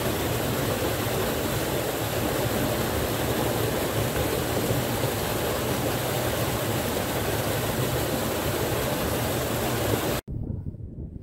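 Small waterfall splashing steadily into a rocky pool, an even rushing of water. It cuts off suddenly near the end, leaving fainter wind noise.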